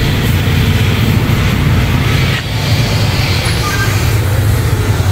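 Steady low mechanical rumble with a broad hiss over it, dipping briefly about two and a half seconds in.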